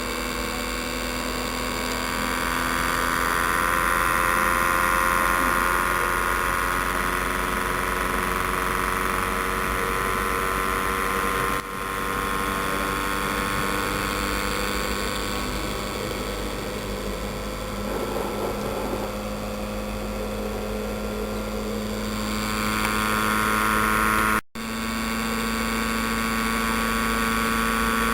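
A small machine running with a steady mechanical hum and whine, broken by two brief dropouts.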